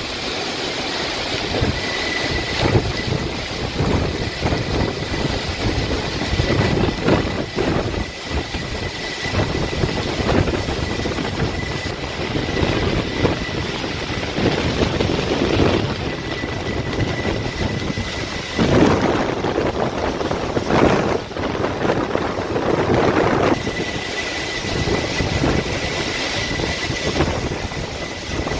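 Hurricane-force wind and driving rain buffeting the microphone, a continuous rushing noise that swells and eases with the gusts.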